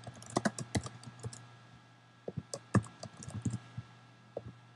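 Typing on a computer keyboard in two quick bursts of keystrokes with a pause between them, then one lone click near the end.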